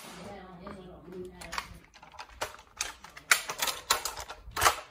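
A string of irregular sharp plastic clacks from a toy foam-dart blaster with a drum magazine being worked and fired, with faint voices in the first second or so.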